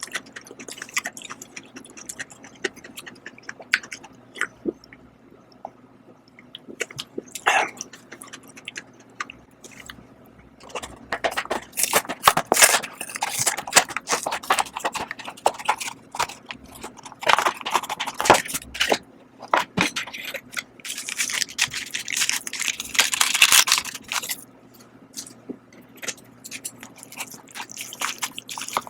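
Close-up eating sounds of Shin Ramyun cup noodles: chewing and mouth clicks, with three louder noisy stretches of a couple of seconds each from the middle on.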